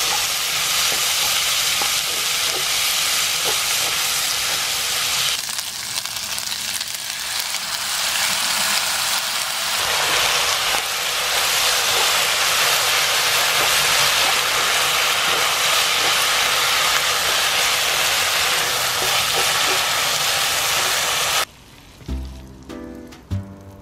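Udon noodles, bacon and cabbage sizzling loudly as they are stir-fried in a hot pan, with a few small clicks of the utensil. The sizzle eases for a few seconds about five seconds in, rises again, then cuts off suddenly near the end, giving way to background music.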